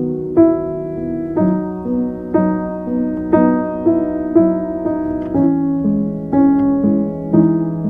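Calm instrumental music: a slow line of single ringing notes, about one new note each second, each sustaining over the others.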